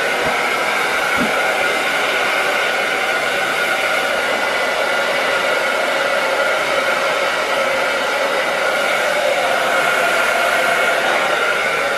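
Handheld hair dryer blowing steadily on one setting, a loud even rush of air with a steady whine, its diffuser attachment held on by hand.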